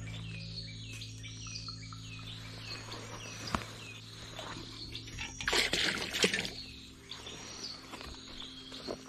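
Night-time forest animal calls: a run of short chirps, each a quick downward-curving note repeated about twice a second, with further chirps later. Beneath them is a low steady hum, and a brief burst of noise comes about six seconds in.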